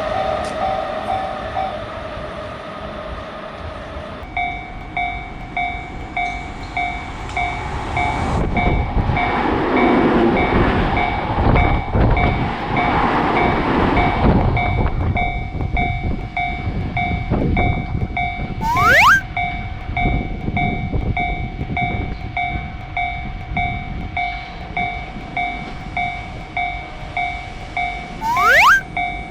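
Japanese railroad crossing warning bell ringing in a steady, repeating 'kan-kan' pulse about twice a second, while an electric train rumbles past through the crossing for several seconds in the middle. A different steady ringing tone is heard briefly at first, and twice a short rising sweep ends in a sharp burst, the loudest moments.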